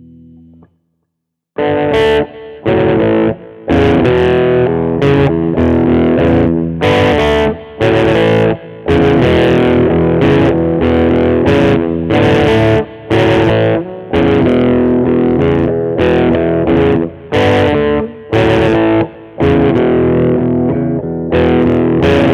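Schecter Omen 6 electric guitar played through a distorted effects patch. A chord rings out and dies, then after a short silence a driving riff starts, cut by many brief stops.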